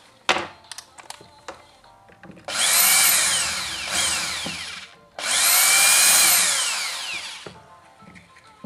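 Cordless drill-driver run twice, each time in a burst of about two and a half seconds, its motor whine rising and then falling, after a single sharp click near the start.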